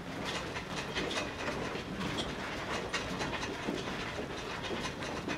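Footsteps of many people walking down and off choral risers and across a stage floor: irregular knocks and heel clicks, several at once.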